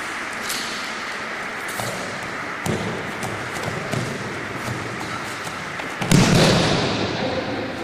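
An aikido partner's body landing on the mat after a throw: one loud thump about six seconds in, with an echo that dies away over about a second in the large hall. A few lighter knocks come before it.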